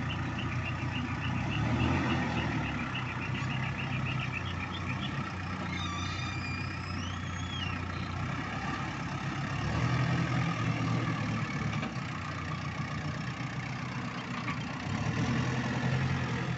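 Ace AX-124 backhoe loader's diesel engine running steadily and swelling under load three times, about two, ten and fifteen seconds in. A rapid series of high-pitched beeps runs through the first few seconds, and a short high warble is heard about six seconds in.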